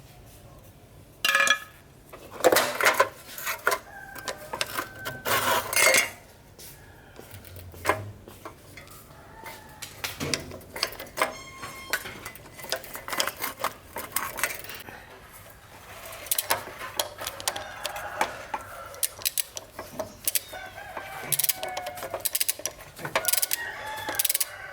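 Metal tools and bicycle parts clinking and knocking against each other, with a few loud clattering bursts in the first six seconds and lighter, busier clicking after.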